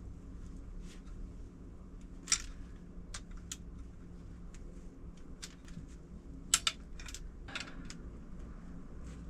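Scattered metallic clinks and taps of hand tools being handled on a motorcycle engine. The sharpest come a little over two seconds in and about six and a half seconds in, over a faint steady hum.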